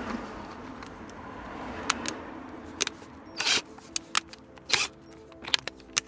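Background music over scattered clicks and knocks of tools being handled, with a short burst of noise about three and a half seconds in.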